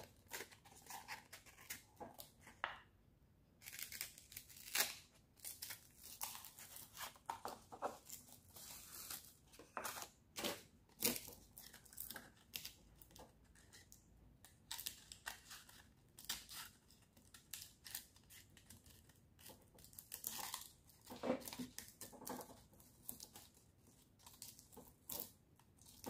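A sheet of sandpaper being folded and pressed around an electric sander's base pad: quiet, irregular crinkling and rustling of the stiff paper as it is handled.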